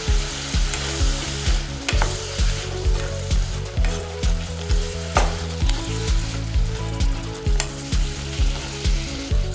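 Mushrooms, onion and capsicum sizzling in hot oil and butter in a pan while being stirred with a silicone spatula. Background music with a steady beat plays along.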